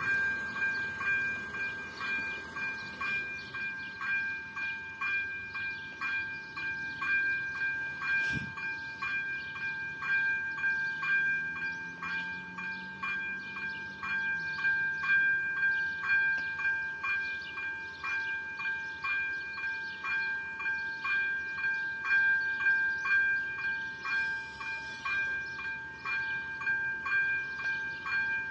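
Electronic warning bell of a Czech railway level crossing ringing continuously: a steady, even repetition of bright chime-like strikes while the crossing's red lights flash to warn that a train is coming.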